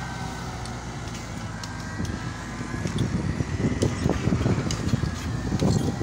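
JCB backhoe loader's diesel engine running while its rear backhoe digs, growing louder and more uneven about halfway through, with rapid low knocking and clatter.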